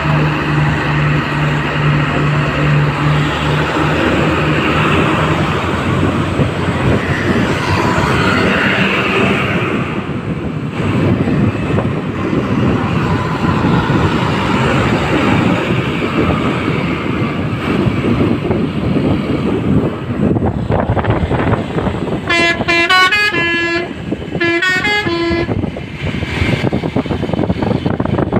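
A tour bus's Basuri 'telolet' multi-tone horn plays a quick stepping melody in two short runs, a little over a second each, near the end. Dense vehicle and road noise fills the rest, with a steady low hum at the start.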